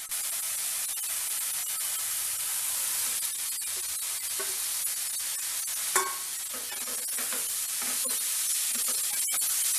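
Onion-tomato masala sizzling steadily in a nonstick kadai, with fried potato and cauliflower pieces being stirred through it by a spatula, scraping against the pan in the second half. One sharp knock about six seconds in.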